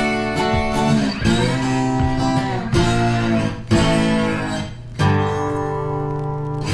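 Background music led by strummed acoustic guitar, with a new chord struck about every second or so.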